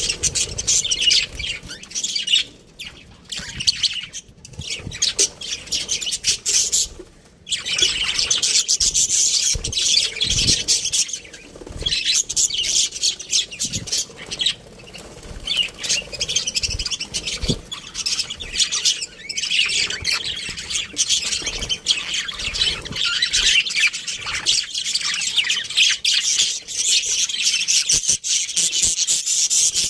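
Budgerigars chirping and warbling in a rapid, continuous chatter with squawks, pausing briefly a few times in the first eight seconds.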